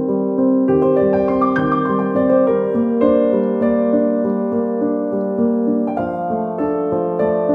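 Background piano music: a melody over sustained chords, with a new chord struck about six seconds in.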